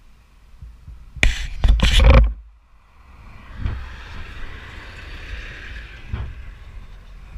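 About a second in, a loud burst of rustling and knocking close to the microphone lasts about a second. After that a motorcycle rides along steadily under a low rumble and a hiss of wind noise.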